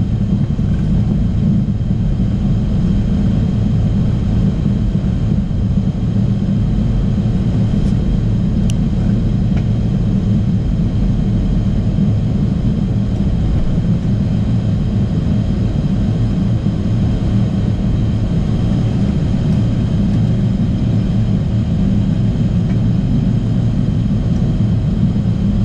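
Learjet 45XR cockpit noise while taxiing, its turbofan engines at taxi power: a steady low rumble with a constant high-pitched whine over it. A single sharp click sounds about nine seconds in.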